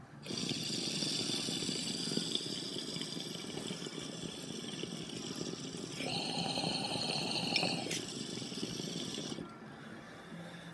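Water bubbling through a glass bong's percolator as air is drawn through the mouthpiece: a steady gurgle for about nine seconds, stronger for a couple of seconds in the second half, then stopping.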